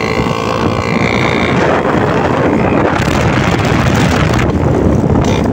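Bajaj Chetak two-stroke scooter running at speed, its modified exhaust loud, mixed with heavy wind noise on the microphone.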